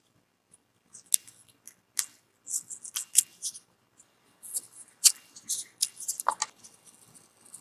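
Small carving knife slicing into a raw red radish: short, crisp crunching and snapping sounds in irregular clusters as the blade cuts through the firm flesh and pares off thin pieces of red skin.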